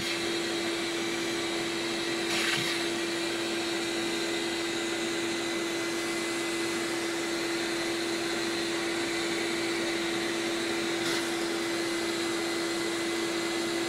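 Vacuum cleaner running steadily, a constant motor hum over the rush of air, its hose end held inside an SLA printer's open mirror compartment.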